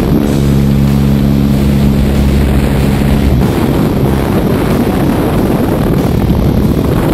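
Small jump plane's piston engine and propeller droning, with wind rushing in through the open jump door. The steady engine tone drops out about three and a half seconds in, leaving a loud, even rush of wind and engine noise.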